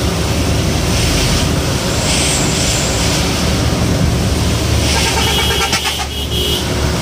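Bus running at speed on a wet road, heard from the driver's cab: steady engine rumble with the hiss of tyres on water. A short pitched tone sounds about five seconds in.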